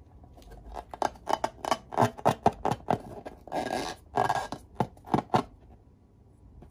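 A filled rubber balloon handled and squeezed in the hands: a quick run of sharp rubbery clicks and squeaks, with two longer rubs in the middle. The sounds stop about a second before the end.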